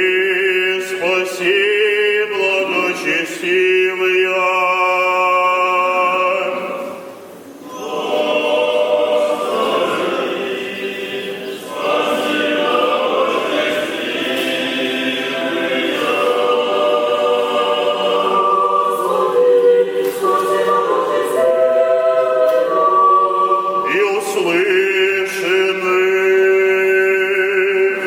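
Unaccompanied choir singing an Orthodox liturgical chant in sustained, held notes, with a short break about seven seconds in.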